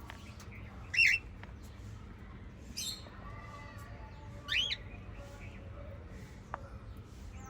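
Pet parrots calling: three short, loud squawks about a second, three seconds and four and a half seconds in, the last a quick rising call, over faint chirping.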